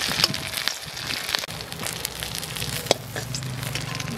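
Banana-leaf parcels of potol paturi sizzling in a little hot oil in a metal wok, with sharp clicks and scrapes of a metal spatula against the pan as they are lifted out.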